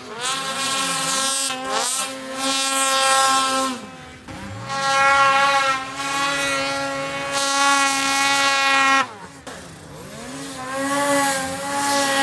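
Snowmobile engine revving hard through deep powder, holding a high, steady pitch under throttle. It drops off twice, about four seconds in and again around nine seconds, as the rider eases off, then pulls back up.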